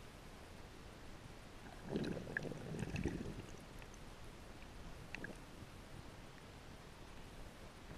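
Muffled underwater noise picked up through a GoPro's sealed waterproof housing: a faint steady hiss, with a burst of low rumbling water movement and a few small clicks about two seconds in, and a smaller one about five seconds in.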